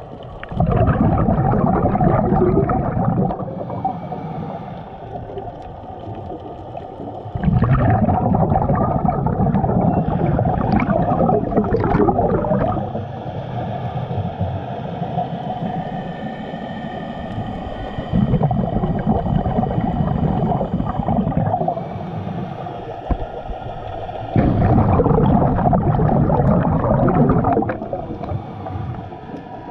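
Scuba regulator exhaust bubbles heard underwater, the diver's exhaled breath bubbling past the head in four long bursts several seconds apart, with quieter stretches between.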